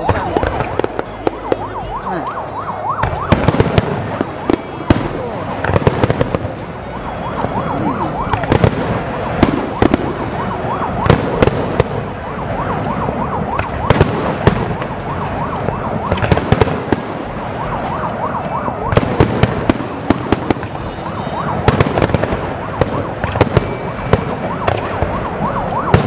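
Fireworks display: aerial shells bursting in a rapid, continuous barrage of bangs and crackles, with many whistling shells whose gliding whistles overlap throughout.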